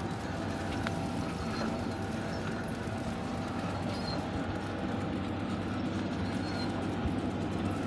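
JL-B600 automatic pillow-type packing and shrink-film wrapping machine running: a steady mechanical clatter of rapid clicking and rattling, with a faint steady hum underneath.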